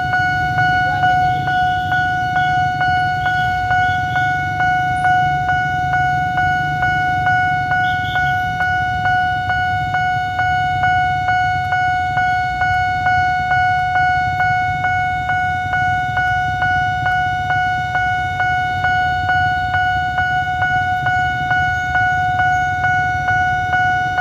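Railway level-crossing warning bell ringing on one pitch, about two dings a second, with the low rumble of jammed traffic underneath.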